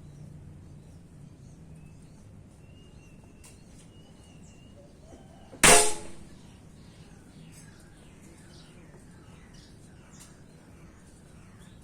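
A single shot from a pink Predator air rifle about halfway through: one sharp crack with a short metallic ring.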